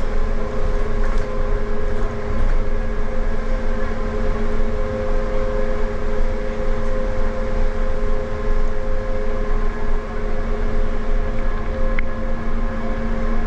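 Tateyama Tunnel electric trolley bus running, heard inside the cabin: a steady hum with several held tones over a low rumble.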